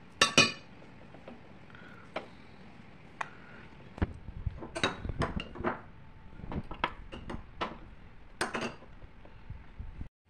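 Metal utensils clinking and tapping against ceramic plates and a small cup, a dozen or so separate clinks. The loudest, with a ringing tail, comes at the very start; they come thickest between about 4 and 9 seconds in.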